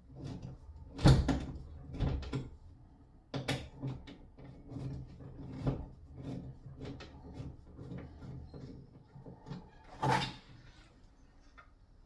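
Irregular knocks, clunks and rattles of hand tools and shower fittings being handled, with a sharp knock about a second in and another near the end.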